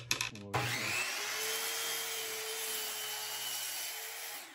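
A few clicks, then a Ryobi sliding compound miter saw's motor starts with a rising whine and runs steadily while the blade crosscuts a one-by board of reclaimed lumber; the sound stops near the end.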